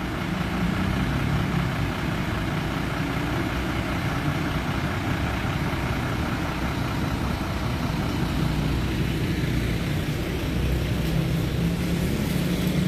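Fire engine idling, its engine running steadily and evenly.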